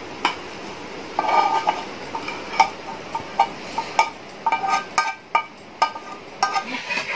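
A spatula scraping cooked onion mixture out of a non-stick frying pan into a steel pot, with repeated taps and knocks of pan and spatula against the pot, some ringing briefly.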